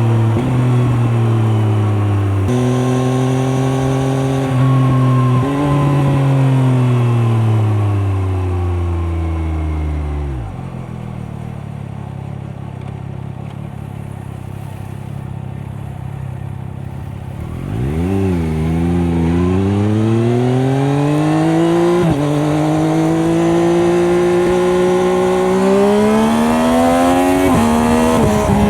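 Triumph Daytona 765 Moto2's three-cylinder engine through its stock Arrow exhaust: it shifts up twice, rolls off and slows to idle for several seconds, then pulls away again, the pitch climbing and dropping with each upshift.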